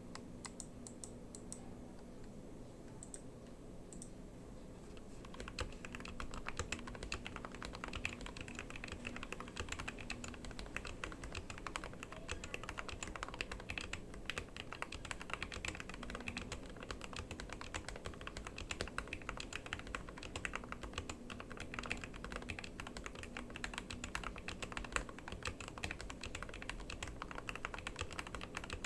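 Typing on a Glorious GMMK 2 96% mechanical keyboard fitted with lubed and filmed Gateron Milky Yellow Pro linear switches and XMI keycaps. The keystrokes are light and sparse for about the first five seconds, then turn into fast, continuous typing.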